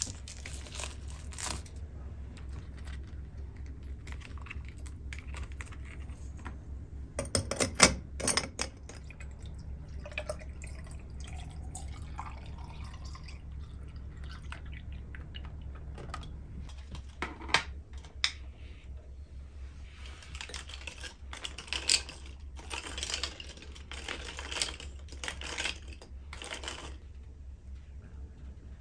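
Coffee ice cubes clinking into a tall glass, then milk poured over them with a faint gurgle that rises in pitch as the glass fills. Later come scattered light clicks and crackly rustling of handling. A steady low hum runs underneath throughout.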